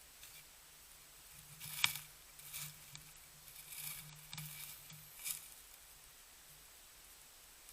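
A few irregular soft crunches or rustles, the first one the loudest, as of an animal moving through snow close to the microphone.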